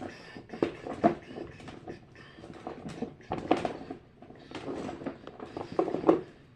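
Small plastic fidget toys being rummaged through and handled in a container, with irregular clicking, clattering and rustling.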